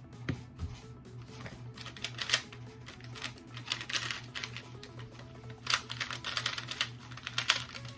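Rapid, irregular clicking and clacking of a plastic 2x2 speed cube being turned fast during a timed solve, over quiet background music.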